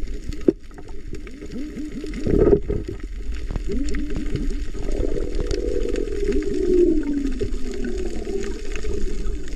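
Muffled underwater water sounds: gurgling bubbles and water moving, heard with the microphone submerged. There is a sharp knock about half a second in and a louder rush of water a little after two seconds.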